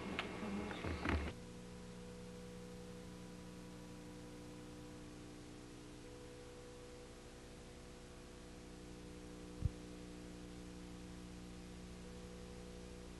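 A few clicks and knocks in the first second, then a steady electrical hum with faint hiss, several tones held level, broken once by a short low thump about ten seconds in.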